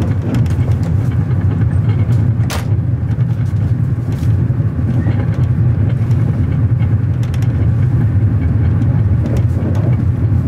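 Steady low rumble of a moving passenger train, heard inside a sleeper compartment, with now and then a sharp click or rattle.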